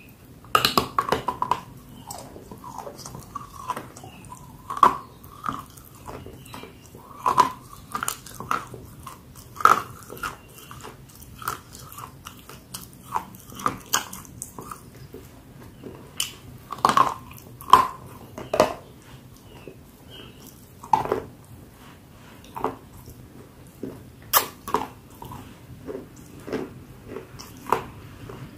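Close-up biting and chewing of a hard, dry, dark-grey chunk. Sharp crunches come irregularly, a few loud bites among many softer chews.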